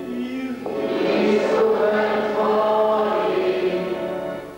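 Liturgical chant sung by a man into a microphone, answered about a second in by a congregation singing together in long held notes. The group singing fades out just before the end.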